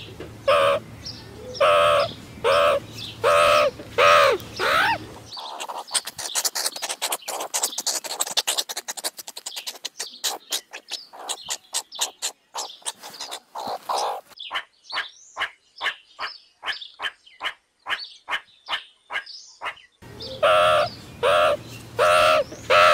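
Meerkat calls. First a run of short, repeated pitched calls, about two a second. From about five seconds in comes a long stretch of rapid, high chirps and clicks. The repeated pitched calls come back near the end.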